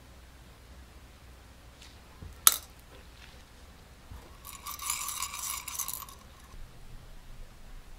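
Small gold-plated screws and bolts clinking in an enamel bowl: one sharp clink about two and a half seconds in, then a jingling rattle lasting about a second and a half.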